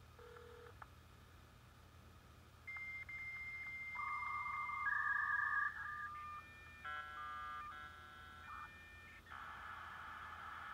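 Dial-up modem connecting to a BBS over a phone line. A short low tone comes first. About three seconds in, the answering modem sends a high steady answer tone, then come stepped two-tone handshake signals and a brief chord of many tones at once. From about nine seconds in there is a steady hiss as the two modems train and settle the connection.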